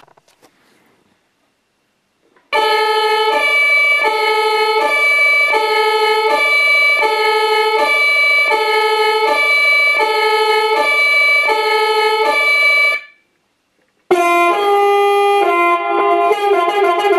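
Two-tone emergency siren from the Tamiya RC ambulance truck's Beier USM2 sound module, played through its loudspeaker. Two horn-like tones alternate evenly for about ten seconds, then stop. After a short break, a different tone sequence with quicker changes starts near the end.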